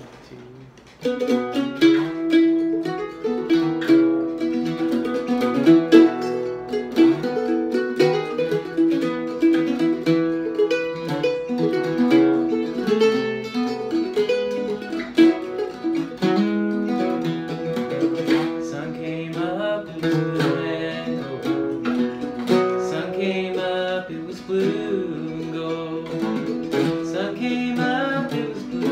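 Mandolin and octave mandolin playing a duet, starting suddenly about a second in with a run of plucked, picked notes over strummed chords. A man's voice joins in singing near the end.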